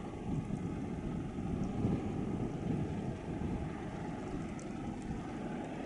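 Steady low noise of a Ro-Ro passenger ferry's engines running as it moves slowly past, mixed with wind buffeting the microphone.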